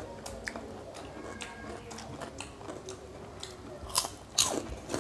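Close-miked eating with the hands: chewing, small wet mouth clicks and lip smacks, and fingers mixing rice on steel plates, with louder smacks about four seconds in.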